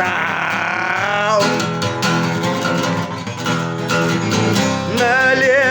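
Acoustic guitar strumming chords in an instrumental gap of a song, with a held sung note fading out in the first second and the voice coming back near the end.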